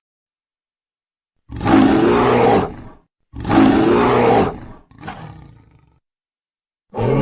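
A large wild animal giving loud, rough calls: two long ones about a second and a half each, a shorter one that fades away, then another starting near the end.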